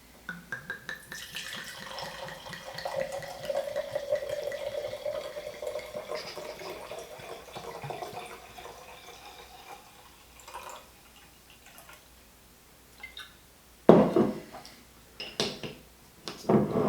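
Moscato wine being poured from a bottle into a glass, a steady pour lasting about ten seconds. A loud knock comes near the end, with another just after it.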